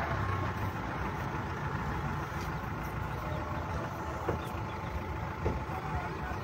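A vehicle engine idling with a steady low rumble. A faint knock comes near the end.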